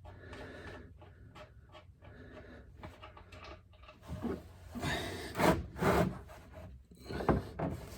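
Rubbing, clicking and scraping from hand work under a car as the oil drain plug is backed out. There are faint small clicks at first, then several louder scrapes and knocks in the second half.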